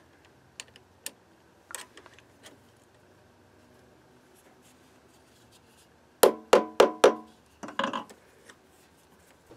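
Steel precision machine vise being clamped by hand: a few light metal clicks from the handle and screw, then four sharp ringing metallic knocks about a third of a second apart, followed by a short rattle of knocks.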